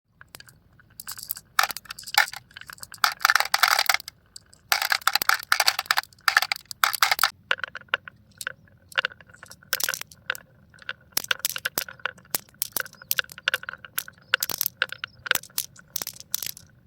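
Marbles rolling and clattering down a marble run. There are two stretches of dense rattling early on, then many separate clicks and clacks as marbles strike the track pieces.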